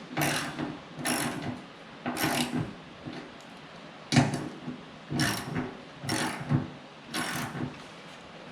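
Hand ratchet being worked in short clicking bursts, about one a second, driving a fastener home, with a pause of about a second partway through.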